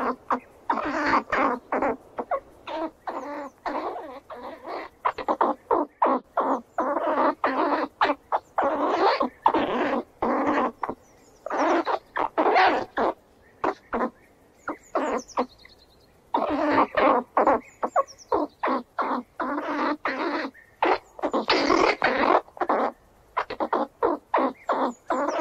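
A squirrel calling in rapid runs of short chattering calls, several a second, broken by brief pauses and a longer pause of a few seconds in the middle.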